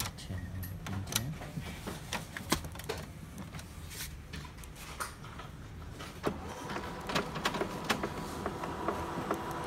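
HP Color LaserJet Pro MFP M479dw laser printer powering on. Scattered clicks come first; then, about six seconds in, a click and its mechanism starts a steady whir with a held high tone as it runs its start-up cycle.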